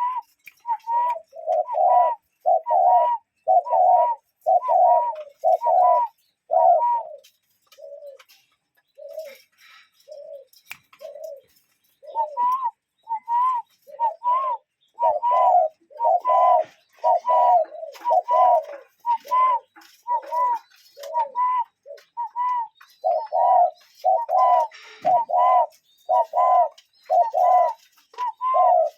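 Cuckoo giving its two-note falling "cu-coo" call over and over in a quick, continuous series. For a few seconds about a third of the way in, only the lower note is heard, about one a second, before the full two-note calls resume.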